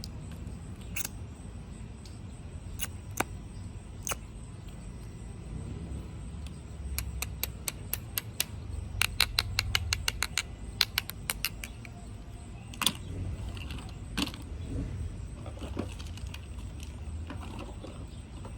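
Plastic lip gloss tubes clicking and clattering as they are handled and sorted. There are scattered single clicks, then a quick run of light clicks, several a second, in the middle.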